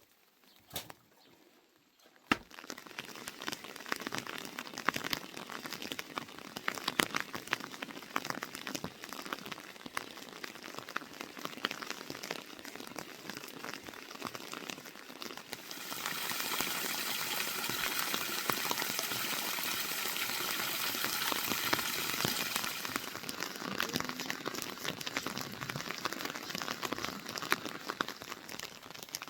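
Rain falling, a dense crackling patter of drops on a surface. It starts after a couple of seconds of near quiet and swells into a steadier, heavier hiss for several seconds past the middle before easing back to the patter.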